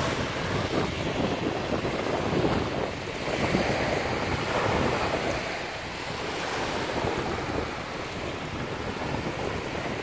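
Wind buffeting a handheld phone's microphone over small waves washing onto a sandy beach, a steady rush that swells and eases.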